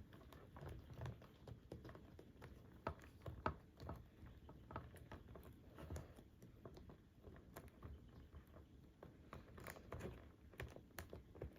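Faint scattered clicks and taps of a plastic King Ghidorah toy figure being handled as its detachable tails are pushed into place.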